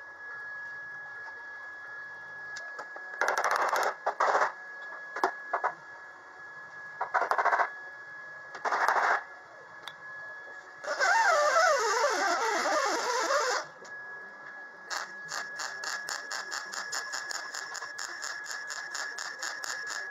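MIG welder welding a thin steel patch panel on a car's inner wing: several short bursts of about a second each, a longer burst of two to three seconds about eleven seconds in, then a fast, even stutter of short welds, about five a second, through the last five seconds.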